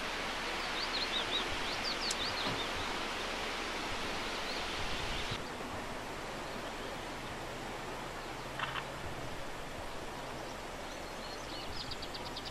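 Steady outdoor background hiss, with small birds chirping in short wavering calls about a second in and again near the end.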